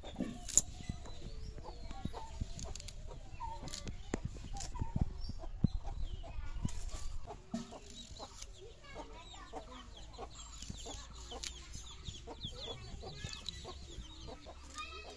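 Domestic hens clucking on and off throughout, with a few sharp knocks and clatters in the first half.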